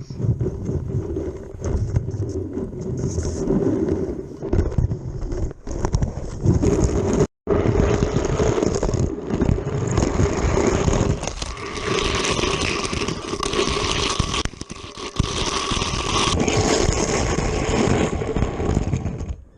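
Toy car with a camera rolling fast along plastic Hot Wheels track, a continuous rattling, scraping rumble of wheels and joints that drops out for an instant about seven seconds in.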